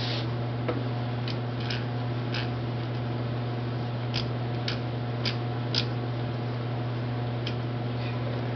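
Edge Pro Apex 1000 grit stone drawn in short strokes across a knife edge to polish it: about eight brief, separate scrapes, under a steady low hum.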